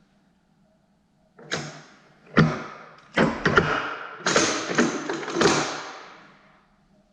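A run of about six clunks and rattles from a metal lathe while it is stopped. They start about a second and a half in, come thickest in the middle, then fade out, over a faint steady hum.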